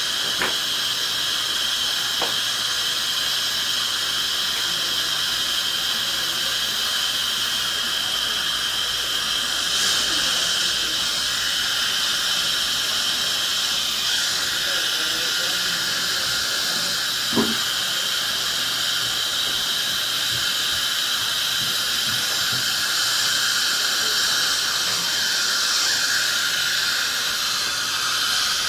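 Dental suction hissing steadily, with a faint steady whine, and one short knock about two-thirds of the way through.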